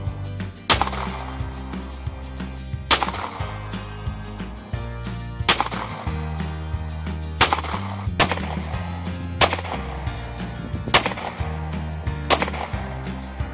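Handgun fired at a target, about eight single shots a second or two apart, each a sharp crack with a short ringing tail, over background music.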